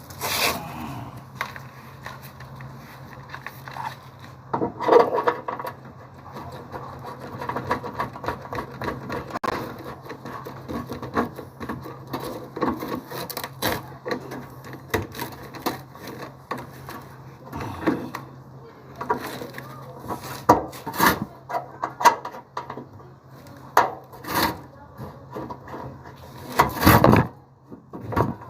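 Irregular knocks, scrapes and rubbing of hands-on installation work, with the loudest knocks around 5 s, 20 s, 24 s and 27 s, over a steady low hum.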